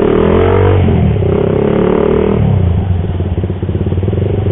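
Single-cylinder engine of a Suzuki Satria FU bored up to 200cc, revving up under acceleration while riding, with a short dip in revs about a second in. It climbs again, then the throttle comes off about two and a half seconds in and the engine settles to a lower, steadier run.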